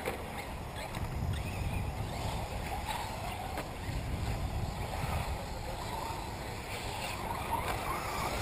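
Radio-controlled off-road model cars running on a dirt track, their motors whining and wavering up and down in pitch as they accelerate and slow through the turns, over a steady low rumble.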